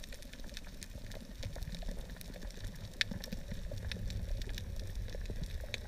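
Underwater reef ambience: a dense, irregular crackle of small sharp clicks over a low rumble of moving water.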